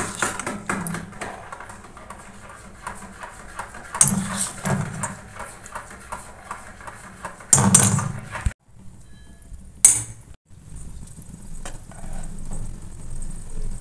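A wire whisk beating a thick, wet banana and wheat-flour batter in a steel bowl, with quick clicks and scrapes against the bowl and two louder spells of beating. About 8.5 seconds in it cuts off, and a steady faint hiss from the oil heating in an iron kadai on the gas stove follows.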